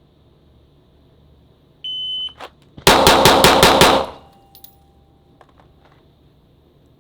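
A shot timer beeps once, then a Glock 19 Gen 5 9mm pistol with a Parker Mountain Machine compensator fires a rapid string of six shots in about a second: a Bill drill. A single click comes between the beep and the first shot.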